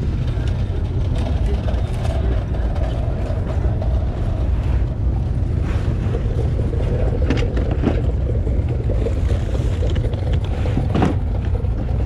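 Steady low outdoor rumble, with a few short knocks about six, seven and a half, eight and eleven seconds in.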